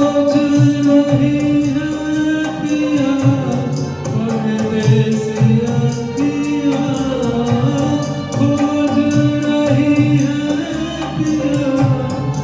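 A solo voice sings a slow Hindi film song in light-classical style, holding long notes that glide and bend. Underneath is an accompaniment track with light, steady percussion.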